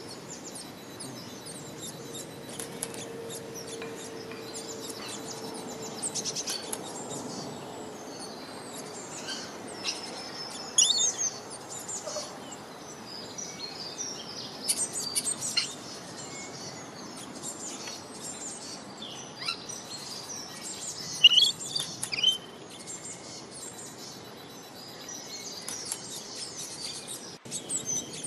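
Birds chirping and calling over a steady background hiss, with a few louder high calls standing out about a third and three-quarters of the way through.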